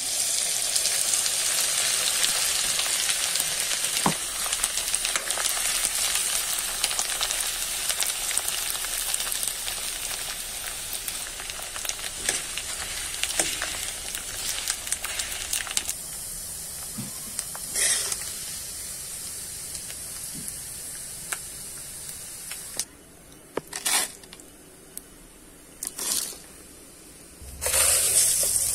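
Leftover cooked rice tipped into hot oil in a pan, sizzling loudly at once, then frying with a steady hiss that slowly fades while a spoon stirs it, with scattered clicks. Near the end the hiss drops away to a few short bursts, then a fresh loud sizzle starts.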